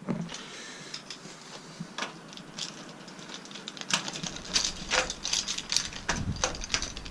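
Quick, irregular metallic clicks and rattles from a small mechanism, growing busier about four seconds in as a low rumble comes up underneath.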